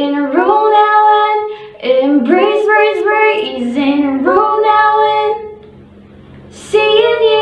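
A woman singing a jingle solo in a clear voice with long held notes, breaking off for about a second before coming in again near the end.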